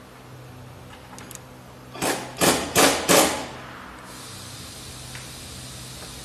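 Four short, loud bursts of rapid rattling impacts, roughly half a second apart, starting about two seconds in, followed by a faint high hiss.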